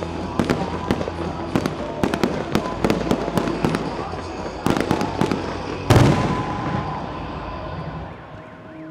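Aerial fireworks shells bursting in quick succession, a rapid run of sharp bangs and crackles, with the loudest bang about six seconds in; the bursts then die away and the sound fades near the end. Music plays underneath.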